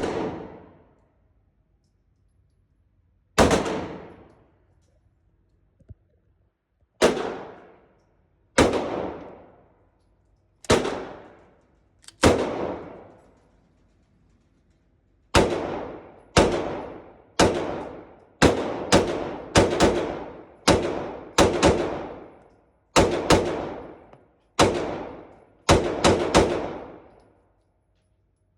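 Glock 19 Gen 5 9mm pistol firing about twenty single shots, each with a short echoing tail. They are slow and spaced at first, then follow in quicker strings of two or three about halfway through.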